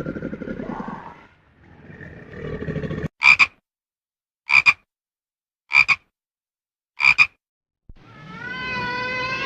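A frog croaking four times, about a second and a half apart, each croak a quick double pulse. A low, rough animal sound comes before it, and a long wavering call starts near the end.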